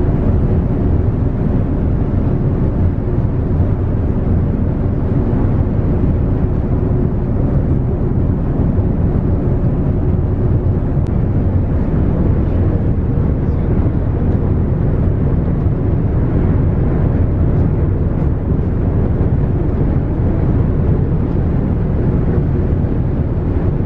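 The icebreaker Aurora running through drift ice: a steady low rumble from the ship's engine and hull, even throughout with no distinct cracks or knocks.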